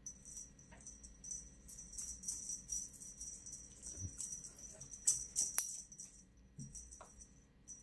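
Light jingling rattle of a cat feather-wand toy being shaken, busiest through the middle, with a few small sharp clicks.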